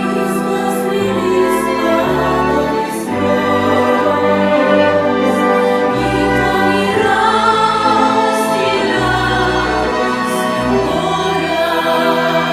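Music: a choir singing slow, sustained lines over a bass accompaniment.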